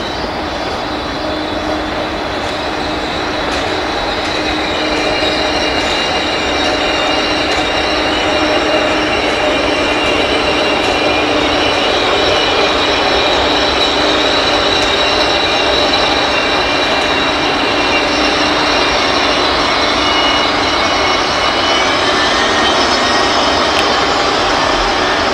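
ICE train rolling slowly past over station tracks, its wheels squealing steadily in several high tones over the rumble of the cars. It grows louder over the first several seconds, then holds.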